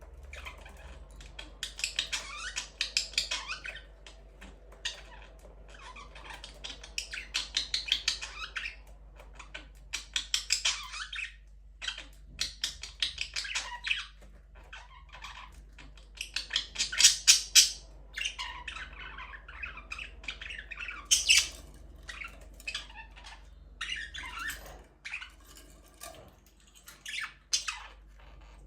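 Budgerigars chattering and squawking in repeated bursts of scratchy warbling, each a second or two long, over a steady low hum.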